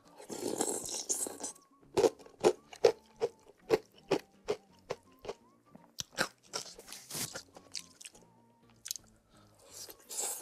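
Close-up mukbang eating of spicy instant noodle soup: loud noodle slurps near the start, about six seconds in and near the end, with rhythmic wet chewing between, about two chews a second.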